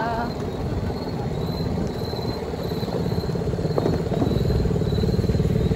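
Motorbike engine running at a steady cruise with a fast, even firing pulse, heard from the bike while riding, picking up slightly about two-thirds of the way through. A faint high chirp repeats every half second or so.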